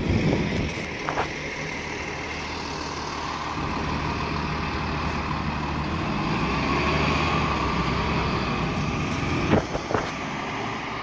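City transit bus's diesel engine running as the bus pulls away and drives off: a steady low engine drone with a whine that swells and then fades. Two sharp knocks near the end.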